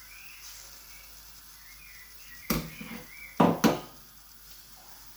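Kitchen utensils knocking sharply against a cooking pot, three times: once about two and a half seconds in, then twice in quick succession a second later.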